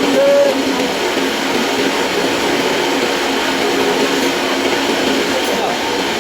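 Yamaha FZ-S V2 motorcycle's single-cylinder engine running steadily, a continuous mechanical noise.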